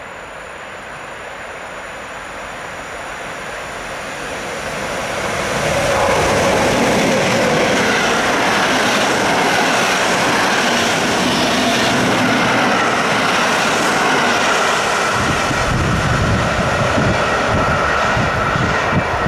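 EP07 electric locomotive hauling an Intercity passenger train past at speed: the rush of wheels on rails grows as it approaches, is loudest from about six seconds in as the coaches go by, and turns into heavier low rumbling near the end.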